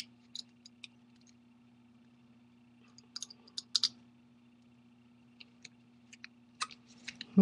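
Scattered small, sharp clicks and taps as a partly disassembled iPhone 4S's metal frame and internal parts are handled and turned over in the fingers, in short clusters, over a faint steady hum.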